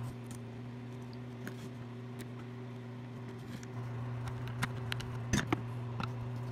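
A screwdriver driving a small screw back into a butane torch's metal head, making a few light clicks and taps in the second half. A steady low hum runs underneath.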